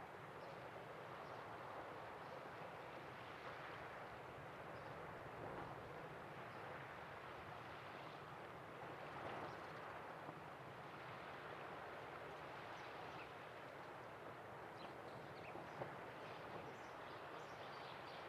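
Faint, steady outdoor background hiss from the estuary air, with a few short, high bird chirps in the last few seconds.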